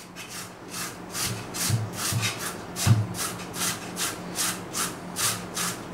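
Peeled potato grated by hand on a flat stainless-steel grater: steady rasping strokes, about four a second, with a few soft knocks.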